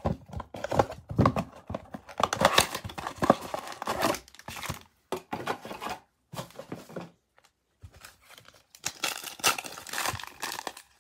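Cardboard Panini Prizm blaster box being torn open, a dense run of ripping and crinkling for about five seconds. After a short pause, a foil card pack crinkles and tears as it is opened near the end.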